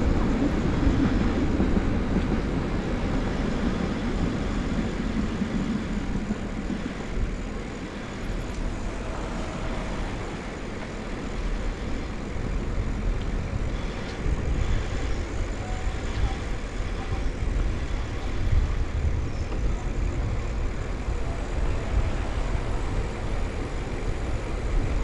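Steady low rumble of wind and rolling noise from riding a bicycle along city streets, easing off briefly about a third of the way through.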